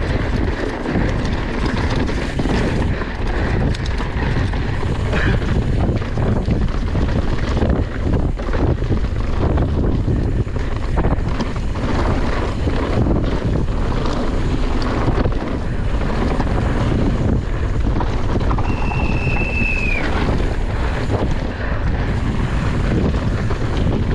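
Wind buffeting the microphone during a fast downhill mountain-bike run, over a steady rumble with frequent knocks and rattles from the rough course. A short high-pitched tone sounds about three-quarters of the way through.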